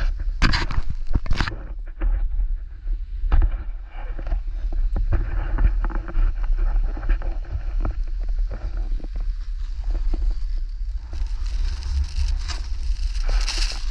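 Skis sliding and turning on snow, with wind buffeting the microphone and scattered knocks. A louder scraping hiss of the skis on the snow comes in about three-quarters of the way through.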